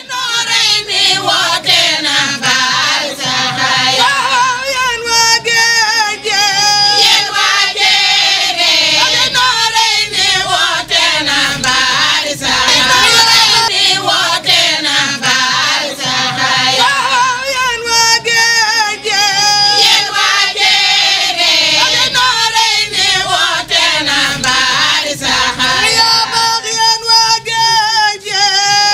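A choir of women singing together in long, gliding melodic phrases.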